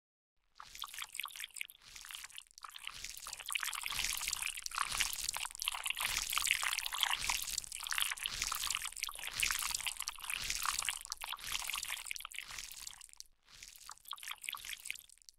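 Wet, liquid sound effect: a dense crackle of tiny dripping and trickling clicks. It builds after about half a second, thins near the end and cuts off suddenly.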